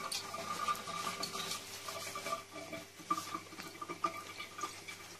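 Faint drips and small scattered clicks of wet hands and a plastic disc being handled at a kitchen sink just after the tap is shut off. A faint, broken high tone runs underneath.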